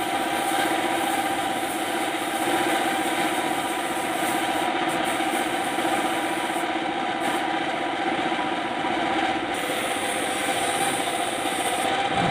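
An air spray gun hissing as it sprays paint onto a truck's steel dump body. The hiss stops briefly three times. Under it runs a steady engine hum.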